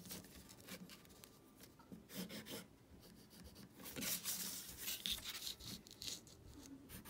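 Pencil drawing on paper in several short, faint scratching strokes, some drawn along a plastic ruler, which is shifted across the sheet between strokes.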